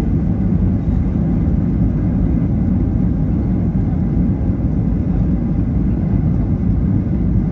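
Boeing 737-800 on its landing rollout, heard from inside the cabin: a steady low rumble of wheels on the runway, engines and airflow over the deployed spoilers, with no change in level.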